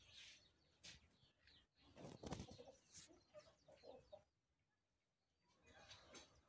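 Faint domestic fowl (chickens and turkeys) making scattered short clucks and calls, with one louder brief sound a little over two seconds in and a quiet stretch of about a second before more calls near the end.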